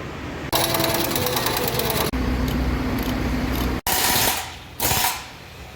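Pneumatic impact wrench hammering in bursts as a new shock absorber assembly is bolted in: one long run of rapid blows, then two short ones.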